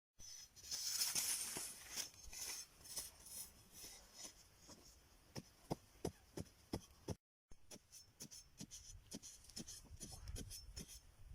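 Hand work on bamboo: a rasping scrape, then a run of sharp taps and knocks, about four a second, carrying on after a cut.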